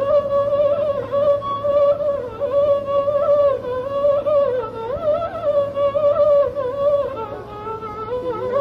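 Carnatic raga alapana in Todi: a single slow melodic line that glides and bends through ornamented notes, with no percussion.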